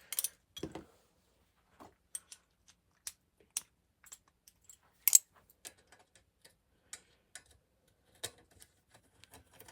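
Irregular sharp metal clicks and clinks of hand tools and loosened bolts while the cylinder head is being unbolted from a lawn mower engine. There are a few a second, and the loudest comes about five seconds in.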